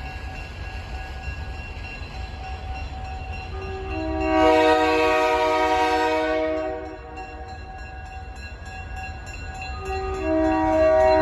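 Diesel locomotive's multi-chime air horn sounding a chord in long blasts: a loud one about four seconds in lasting some two and a half seconds, and another beginning near the end. Fainter steady tones and a low rumble run underneath.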